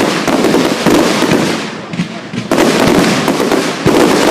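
Fireworks display: aerial shells bursting with loud bangs and crackling. A new burst comes about two and a half seconds in and another near the end, each trailing off in crackle.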